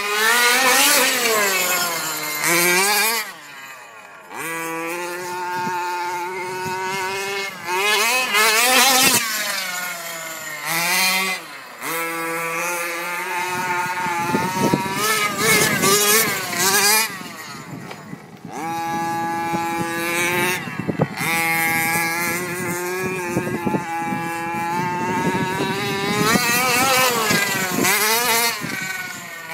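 Small nitro engine of an FTX Punisher RC buggy revving up and down as it is driven, its pitch climbing and falling with each burst of throttle and dropping away briefly several times. It is running on a newly fitted carburettor that replaced one that had gone bad.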